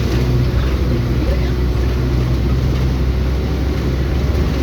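Vehicle engine and road noise: a steady low drone with a constant hum that holds even, as from a vehicle cruising.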